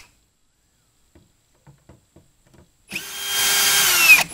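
Cordless drill/driver backing out a taillight screw. It is quiet with a few faint clicks for about three seconds, then the motor spins up and runs with a steady whine, its pitch wavering up and down near the end.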